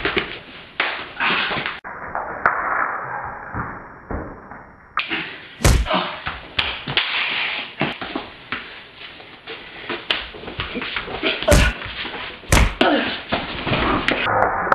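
Scuffling and thuds from a staged scuffle, with three sharp loud slams: one about six seconds in and two more about a second apart later on.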